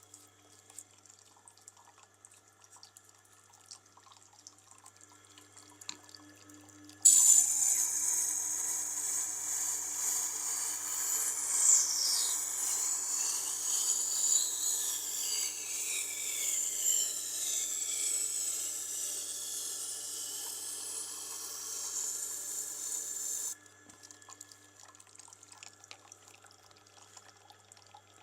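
Knife blade held against a Tormek wet-grinding stone running in water, a loud hiss with shifting, sweeping pitch that starts suddenly about seven seconds in and cuts off about sixteen seconds later. Beforehand there is only the grinder's steady motor hum and faint ticks.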